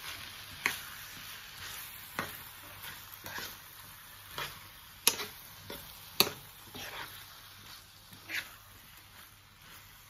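Bitter melon, red kidney beans and egg sizzling in a non-stick frying pan as a wooden spatula stirs and turns them, with irregular sharp taps and scrapes of the spatula against the pan. The two loudest knocks come near the middle.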